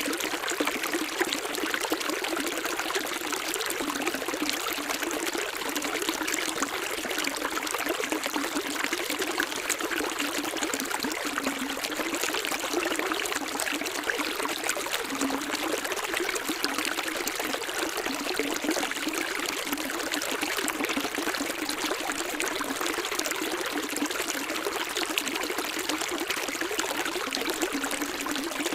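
Running water of a stream, trickling and splashing steadily. It is a bright, even wash with almost no low rumble.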